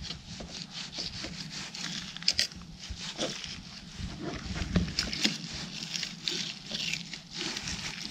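Fillet knife slicing and scraping through a sucker fish fillet against a plastic cutting board, cutting out the strip of Y bones: a run of short, irregular rasps and small taps.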